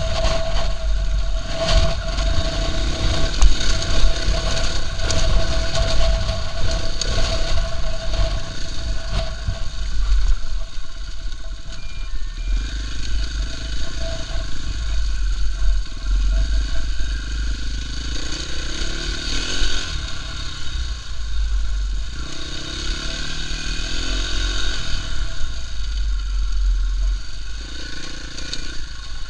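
KTM EXC-F 450 single-cylinder four-stroke engine running under way on a rutted grass track, its revs rising and falling, over a heavy low rumble.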